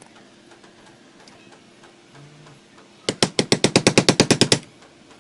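A rapid rattling burst of knocks, about nine a second for roughly a second and a half, starting about three seconds in: a tool hammering at a stubborn, seized screw in an electric fan's housing.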